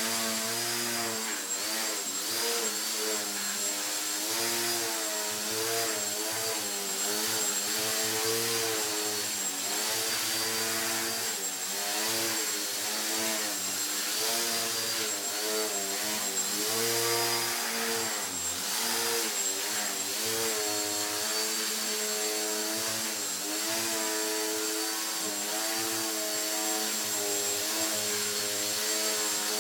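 Turnigy 2204-14T brushless outrunner motor and propeller of a small foam 3D RC plane whining as it hangs in a prop hover. The pitch rises and falls constantly as the throttle is worked to hold the hover.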